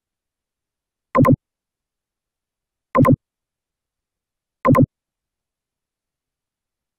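Three identical short electronic blips, evenly spaced about one and three-quarter seconds apart, each a quick double pulse, over otherwise dead silence: a computer sound effect.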